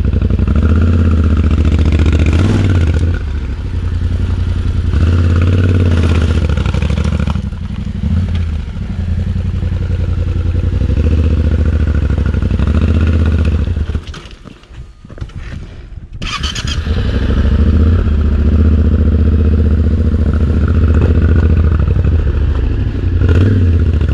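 Motorcycle engine running loud under load on an off-road climb, its revs rising and falling. About fourteen seconds in it drops away sharply for about two seconds, then picks back up.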